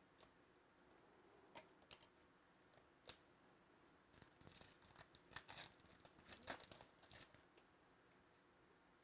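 Trading cards being handled, with a few light clicks, then about three seconds of crinkling and tearing as a foil card pack wrapper is opened.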